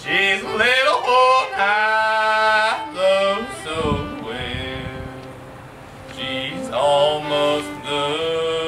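Music with a singing voice holding long notes and sliding between pitches over a steady low accompaniment.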